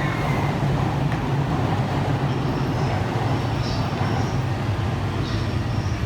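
Steady low hum and rumble of electric trains standing at a station platform, with the general noise of a busy station over it.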